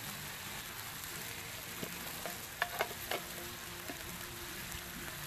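T-bone steak sizzling on a hot flat-top griddle: a steady frying hiss, with a few sharp clicks about halfway through.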